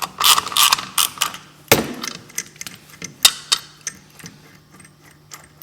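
Irregular sharp metallic clicks and clinks of hand tools and hardware as the bolt securing the sheave adjuster on a snowmobile's driven clutch is worked out and its washers and adjuster are handled. The clicks come thickest in the first second or so, with one louder clink just under two seconds in.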